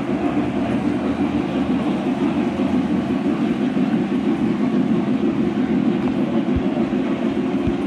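Model train running on a layout: a steady rumble of motor and wheels on the track, with a few faint low thumps near the end.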